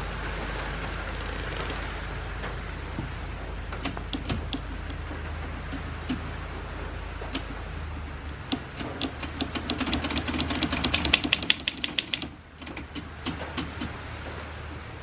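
Keys of a 1950s Olympia Deluxe manual typewriter being struck: a few scattered strokes, then a fast run of about eight strokes a second for a few seconds, then a few more.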